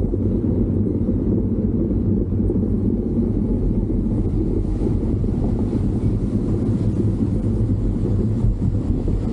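Steady low engine drone and wind rumble from a moving vehicle, holding an even level throughout.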